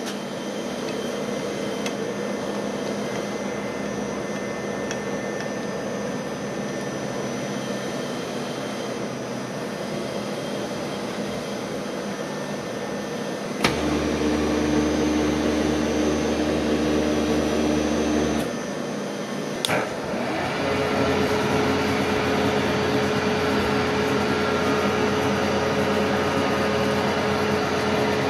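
Milling machine motors running: a steady hum, then a click about 14 seconds in as a motor starts, runs for about five seconds and stops, and another click about 20 seconds in as a motor starts again and runs on steadily at a different pitch.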